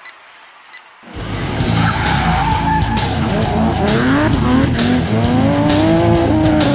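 Race-car sound effect coming in about a second in: an engine revving hard with screeching, skidding tyres as the rally car launches and drifts away. It runs over loud music with a regular beat.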